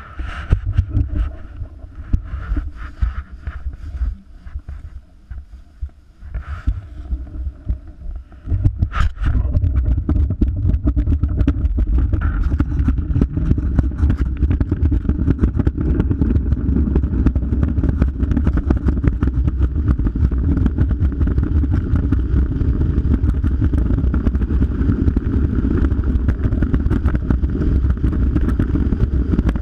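Luge sled sliding down an ice track, heard from a camera on the sled itself: a steady, loud rumble and scrape of the runners on the ice. It sets in with a sharp knock about nine seconds in, after some quieter knocks and rustles at the start.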